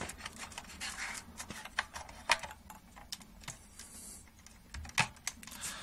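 Irregular small clicks and taps of hands handling cables and parts inside an opened Roland R-8 drum machine's chassis.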